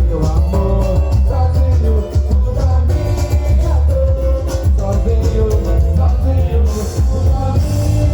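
Loud music with a heavy, steady bass and a shifting melodic line.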